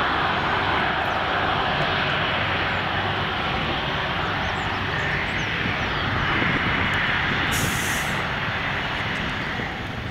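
Airbus A330 airliner's twin jet engines running at taxi power: a steady jet whine and rush as the aircraft taxis past, easing slightly near the end.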